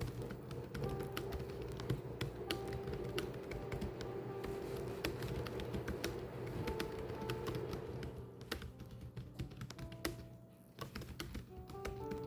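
Keys being typed in a fast, irregular run of clicks, pausing briefly near the end, over background music.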